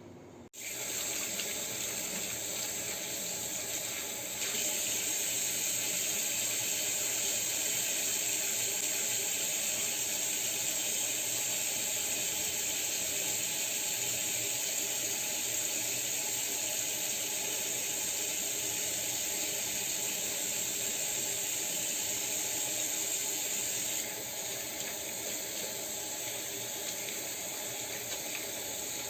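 Water running from a tap into a sink for handwashing, starting suddenly about half a second in; it gets louder about four seconds in and drops back a little near the end.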